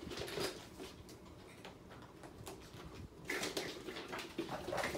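Kittens mewing, with scattered taps and rustles as they play around a fabric playpen.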